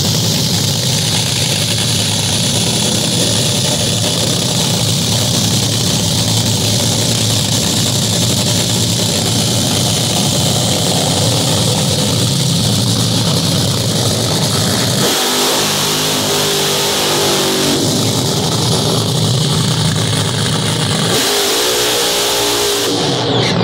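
Top Fuel dragster's supercharged nitromethane V8 running close by, a loud, harsh, steady din that overwhelms the microphone. In the second half its pitch shifts twice as the engine is revved, and near the end it rises into the burnout, the rear tyres spinning and smoking.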